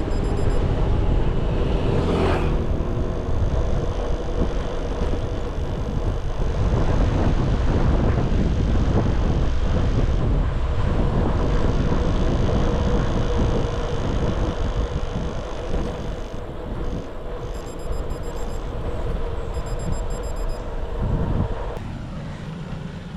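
Wind buffeting the microphone of a camera carried on a bicycle riding at speed, a steady low rumble with a faint steady hum, easing off near the end.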